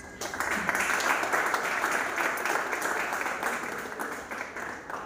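Audience applauding: a dense clatter of many hands clapping that starts suddenly and tapers off near the end.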